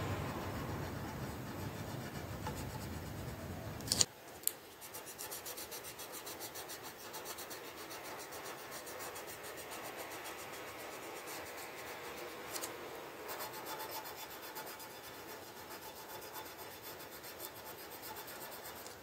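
Coloured pencil scratching on paper in quick back-and-forth shading strokes. Two sharp clicks come about four seconds in, after which the strokes go on lighter and finer.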